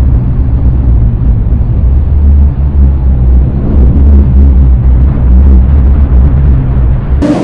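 Loud, deep, continuous rumble, uneven in strength. Near the end a brief, brighter burst of noise cuts in.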